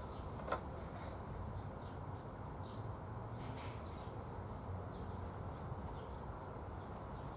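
Quiet outdoor background hum with faint, scattered short bird chirps and a single click about half a second in.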